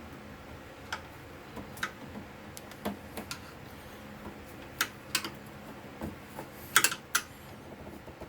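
Light metal clicks and taps of pliers working a spring hose clamp and a stuck fuel line on a small-engine carburetor, irregular and spaced out, with a quick cluster of clicks near the end the loudest.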